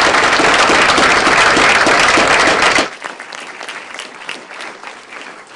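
Audience applauding to welcome a speaker. The loud applause drops off sharply about three seconds in, leaving lighter scattered clapping.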